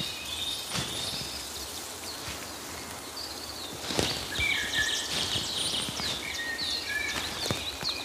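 Several songbirds chirping and singing in a forest, many short high calls and quick pitch glides overlapping. A few sharp footfalls on a path are heard now and then, the loudest about halfway through.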